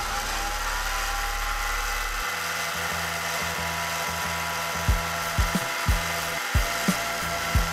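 Mini lathe running with a wooden polishing stick and cloth rubbing on the spinning aluminum rod; the motor whine rises in pitch over the first second as it speeds up. A series of irregular thumps starts about five seconds in.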